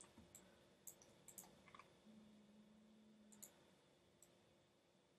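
Faint, scattered clicks of a computer mouse, about seven, most of them in the first two seconds, over quiet room tone. A faint low hum runs for about a second from around two seconds in.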